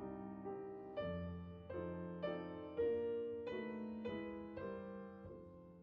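Background piano music: a gentle melody of single struck notes about every half second, each dying away, the whole growing fainter toward the end.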